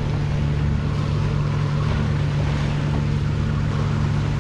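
A sailboat's inboard diesel engine running at a steady cruising hum, with water rushing and splashing along the hull.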